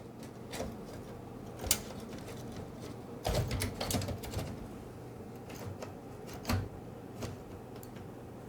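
Scattered clicks and knocks of a LaserJet printer's parts being handled and seated back into place, with a close run of knocks about three seconds in.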